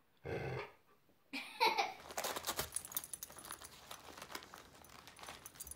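A golden retriever gives a short, low vocal grumble. Then, after a brief voice-like sound, wrapping paper crinkles and rustles with many small crackles as a small white dog tears and noses through it, growing fainter toward the end.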